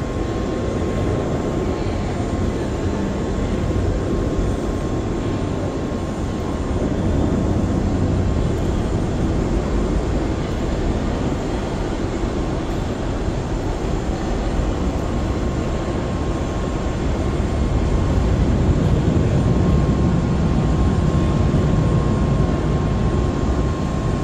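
Four-engine Boeing 747-400 freighter on its takeoff roll and lift-off, jet engines at takeoff power heard from a distance as a steady rushing rumble that grows louder about seven seconds in and again in the last third. A faint steady high whine runs under it.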